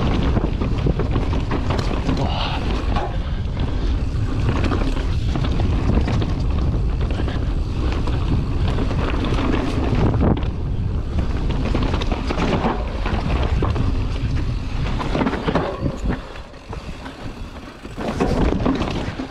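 Wind buffeting the camera microphone over the sound of a mountain bike's tyres running fast on a dry dirt trail, with rattles and knocks from the bike over bumps. The noise eases about three seconds before the end as the bike slows.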